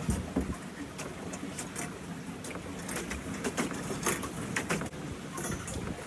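Pedal boat being pedalled across calm water: a low steady churning with scattered light clicks and knocks, several a second and irregular.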